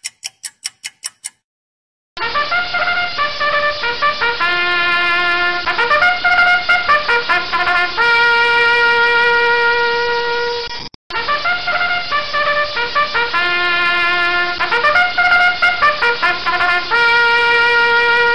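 A brass-toned tune, like a melodic horn, playing a short phrase of quick notes and long held notes, then the same phrase again after a brief break. Rapid even ticking comes before it in the first second or so.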